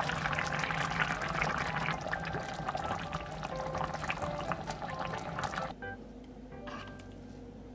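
Soft tofu stew being ladled: a plastic ladle scooping broth out of the simmering pot and pouring it off, a wet sloshing noise with small clicks that cuts off suddenly about six seconds in. Soft background music underneath.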